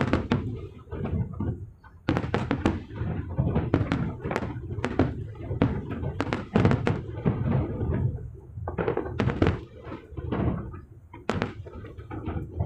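Fireworks display: many sharp bangs in quick, irregular succession over a continuous low rumble of booms, with a short lull about two seconds in.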